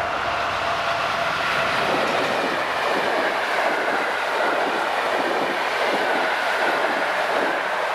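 A train passing close by over a level crossing: a loud, steady rush of wheels on rail with a rhythmic clatter of the wheels.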